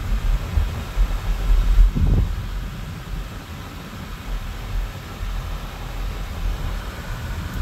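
Road noise inside a moving car's cabin: a steady low rumble from tyres and engine, with one brief low thump about two seconds in.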